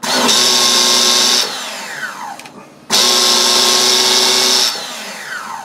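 Electric bump-box starter cranking a 1/10-scale nitro RC car's glow engine in two bursts of about a second and a half. After each burst the starter spins down with a falling whine. The engine never catches: it isn't getting fuel, which the owner puts down to a gummed-up carburetor.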